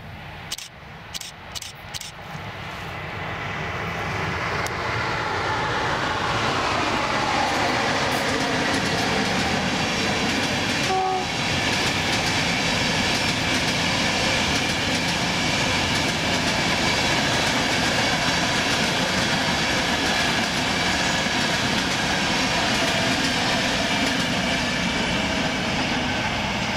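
A CFR 060-EA electric locomotive and its passenger coaches pass close by at speed. A whine falls in pitch as the locomotive goes past, followed by the loud, steady rumble and clickety-clack of the coaches over the rail joints. A short high tone sounds about eleven seconds in, and a few sharp clicks come in the first two seconds.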